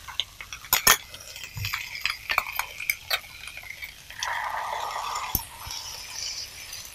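A metal spoon scraping and tapping inside a steel mixer-grinder jar, a run of sharp clinks. About four seconds in comes a short burst of sizzling as the wet ground paste goes into the hot pan of beans, followed by one more sharp clink.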